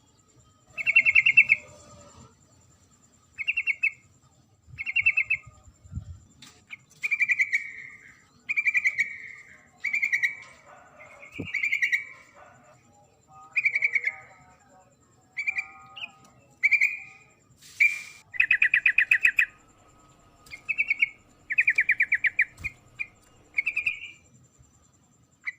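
Female yellow-vented bulbul (trucukan) calling: short, rapid chattering notes repeated about every second and a half, the call used to lure males.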